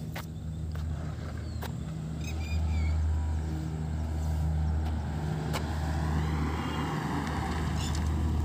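Car engine running with a steady low hum, and a car approaching on the road, its noise swelling from about six seconds in. A few sharp clicks come through.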